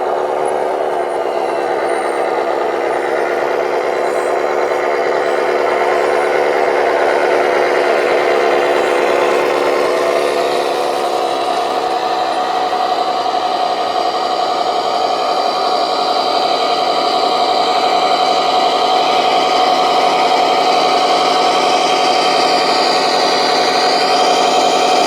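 Electric motors of radio-controlled model construction machines whining steadily, with the pitch shifting about ten seconds in and a higher whine rising and falling near the end.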